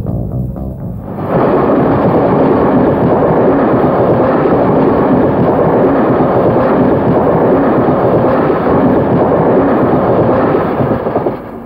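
A red electric train passing close by: a loud, steady rushing and rattling noise that starts suddenly about a second in and dies away near the end.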